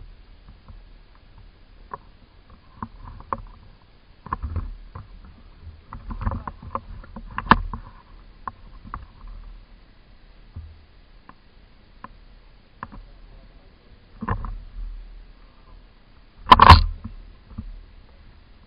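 Scattered sharp clicks and knocks with short bouts of rustling handling noise, typical of airsoft play, and one much louder bang near the end.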